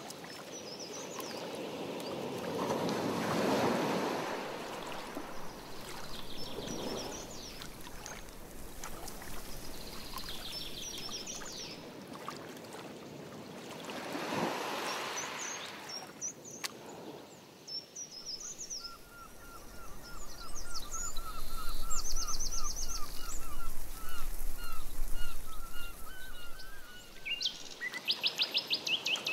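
Canoe paddle strokes swishing through the lake water, about three over the first half, while songbirds chirp and trill repeatedly. A low rumble rises in the second half alongside a long run of quick repeated bird notes.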